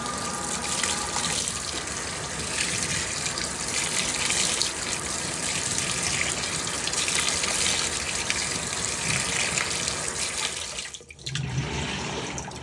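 Water rushing into the tub of an LG Turbodrum WTR807 top-loading washing machine, a steady splashing flow that stops suddenly about eleven seconds in.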